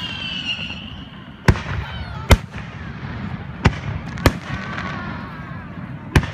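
Aerial fireworks shells bursting overhead: five sharp bangs spread irregularly over several seconds, the second the loudest.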